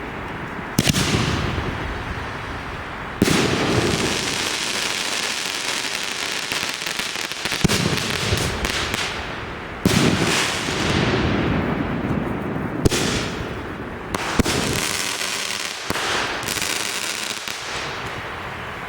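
Consumer fireworks going off: several sharp bangs a few seconds apart, each trailing into long crackling and hissing, with rapid crackling in between.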